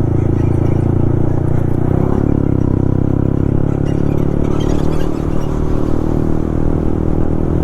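Yamaha MT-15's 155 cc single-cylinder engine through an Akrapovic full-system exhaust, running at a fairly steady pitch at road speed.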